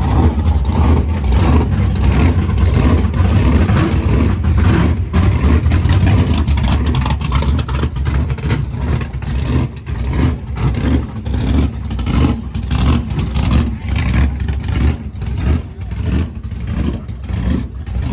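Drag race car engine running loud with a choppy, pulsing exhaust; it eases off somewhat about halfway through.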